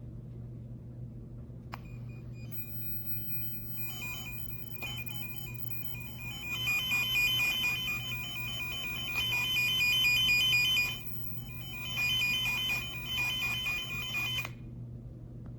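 Tone-tracer probe sounding the warbling, beeping tracing tone from a tone generator. It starts about two seconds in, swells and fades, breaks off briefly about eleven seconds in, then stops near the end. A steady low hum runs underneath.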